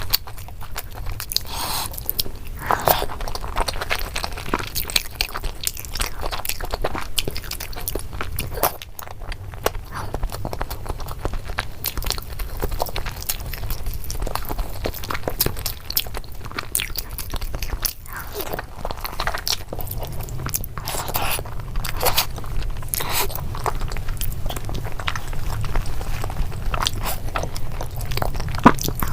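A person chewing and biting food close to the microphone: crunching, crackling and mouth clicks follow one another throughout, over a steady low hum.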